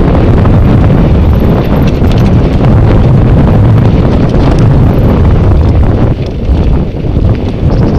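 Wind buffeting an action camera's microphone during a fast mountain bike descent, with the tyres rolling over dirt and rock and scattered rattles and knocks from the bike. The rumble eases briefly about six seconds in.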